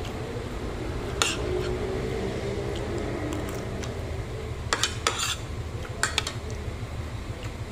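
Metal spoon and fork clinking and scraping against a plate while eating. There are several sharp clinks, one about a second in and a cluster around five to six seconds in, over a steady low hum.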